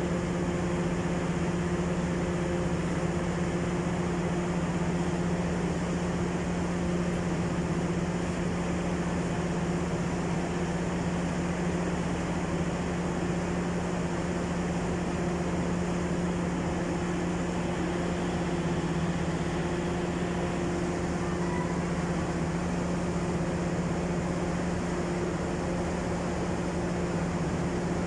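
Steady, even machine hum with a constant droning tone from a passenger train standing idle at the platform.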